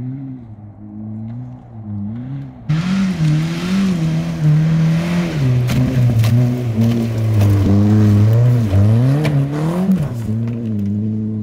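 Small hatchback's engine revving up and down as the car slides through dirt turns. Just under three seconds in, a loud hiss of spraying dirt and tyre noise starts abruptly on top of the engine.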